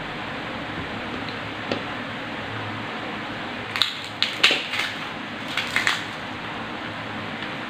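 Crunching of crisp food being chewed close to the microphone: two short runs of sharp crunches in the middle, over a steady hiss.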